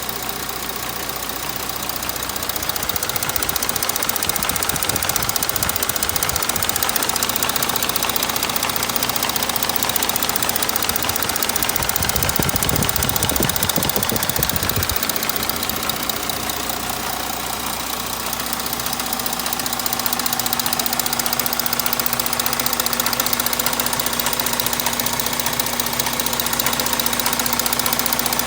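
3.0 TDI V6 diesel engine running with a fast, steady ticking clatter, the unrepaired engine noise it is being recorded for. A steady low hum joins about two-thirds of the way in.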